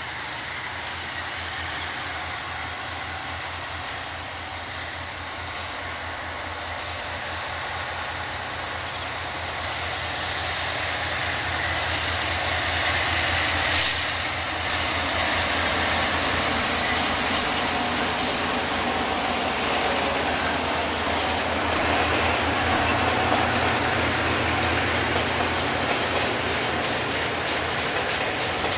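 Freight train led by three KiwiRail diesel-electric locomotives, a DFB and two DC class, passing at speed. The diesel engines grow louder as they approach and pass about halfway through, then the container wagons roll by with steady clickety-clack from the wheels on the rails.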